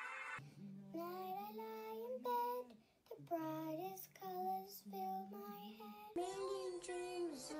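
A young child singing a slow melody solo, holding and sliding between notes, over a soft sustained accompaniment. The recording changes abruptly about six seconds in.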